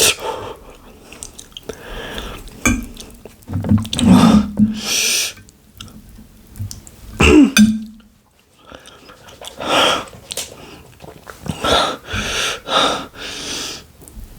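A person eating fiery-hot instant noodles: slurps, chewing and sharp breaths and sniffs come every second or two, with a couple of short voiced groans, one near the middle falling in pitch, from the burning heat.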